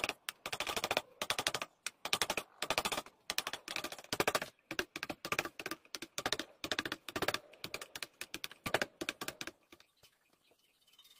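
A wide knife blade chopping and shaving bark and wood from a dry tree trunk, in quick bursts of rapid clicking strikes, which stop about ten seconds in. Then the faint scratch of a marker drawing on the bare wood.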